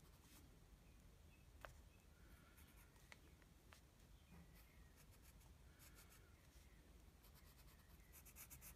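Faint scratching of a graphite pencil on lined paper as short strokes are drawn, with a few small ticks. The strokes quicken into a rapid run near the end.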